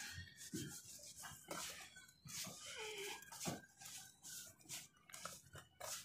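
Hands scooping and crumbling dry, lumpy sand-and-cement mix in a plastic tub: irregular gritty rubbing and crunching as handfuls are squeezed and let fall back. A short animal call sounds faintly in the background about halfway through.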